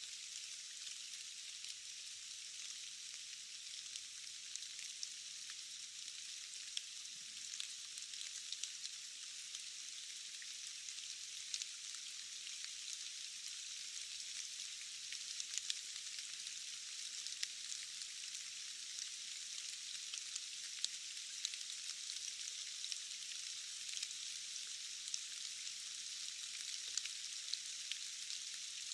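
Steady rain hiss with many small, sharp drop ticks scattered through it. The sound is thin and hissy, with no low rumble.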